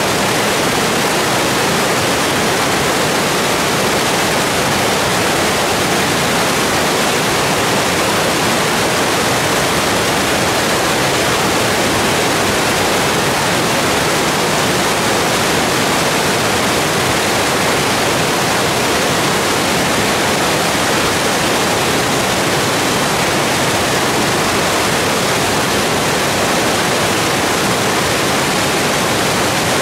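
Glacial meltwater river rushing through whitewater rapids over boulders: loud, steady churning of water with no let-up.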